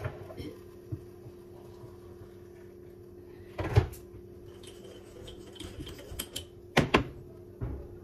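Kitchen handling sounds: two sharp knocks, one about four seconds in and one near seven seconds, with lighter clicks between them, over a steady low hum.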